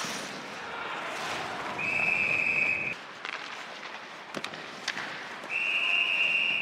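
Ice hockey referee's whistle blown twice: a blast of about a second some two seconds in, and a longer one starting near the end, signalling a stoppage of play. Between them come a couple of sharp clacks over the steady noise of the arena.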